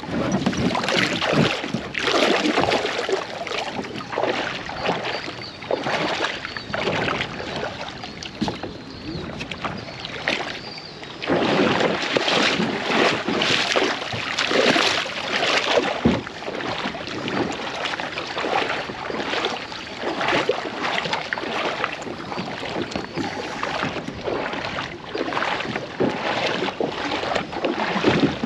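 Kayak paddle strokes dipping and splashing through river water, one swish roughly every second in an uneven rhythm.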